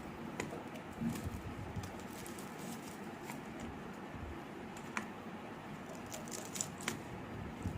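Faint, scattered light clicks and small taps, a few seconds apart, over a low steady background.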